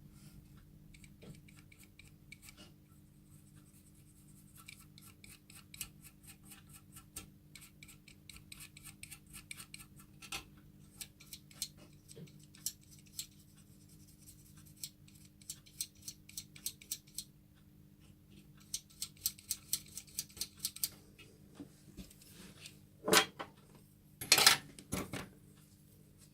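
Gas hob's electric spark igniter clicking rapidly in two long runs, with a low steady hum underneath; two louder rushing bursts follow near the end.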